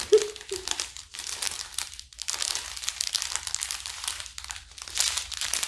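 Clear plastic bags of diamond-painting drills crinkling and rustling as they are handled, with many small crackles.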